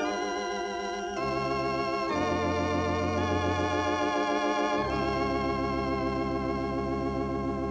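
Organ playing slow sustained chords with a wavering vibrato, moving to a new chord about one, two and five seconds in, the last chord held.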